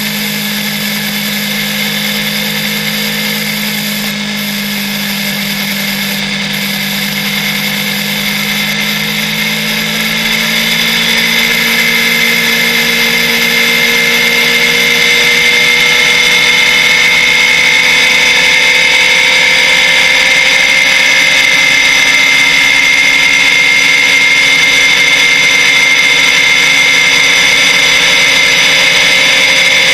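Motorcycle engine running at motorway speed, heard from on board; about eight seconds in its pitch and loudness climb steadily for several seconds as it accelerates, then it holds a steady high note.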